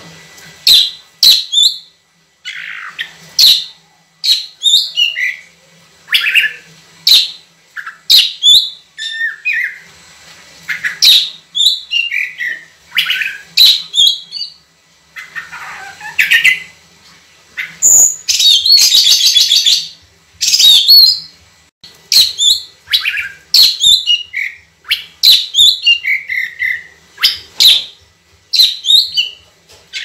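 Caged oriental magpie-robin singing loudly: a run of clear whistled phrases, each sliding up and down in pitch, about one to two seconds apart, with a longer harsh, scratchy phrase a little past the middle.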